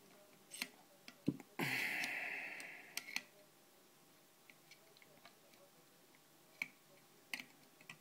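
Light metal clicks and taps of a two-in-one lever pick working the levers inside a seven-lever lock, with one louder rasping burst about one and a half seconds in that fades over about a second.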